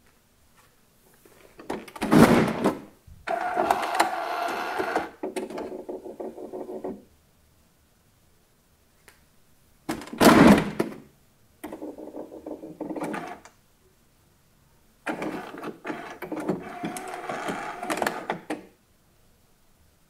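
HP all-in-one inkjet printer's service flap lifted open with a loud plastic clatter, followed by the cartridge carriage motor whirring in two runs. About ten seconds in the flap is shut with another loud clunk, and the carriage motor whirs again in a short run and then a longer one.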